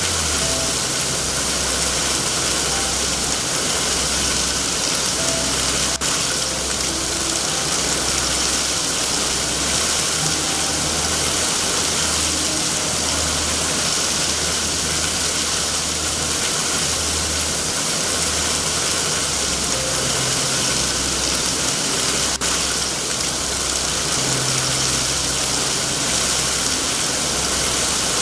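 Steady heavy rain: an even hiss with a continuous low rumble underneath and a couple of faint clicks.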